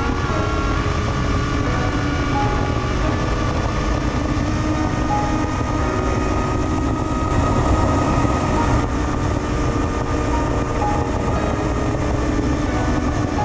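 FPV quadcopter in flight, heard from its onboard camera: a steady whine from the motors and propellers over a loud rush of wind noise.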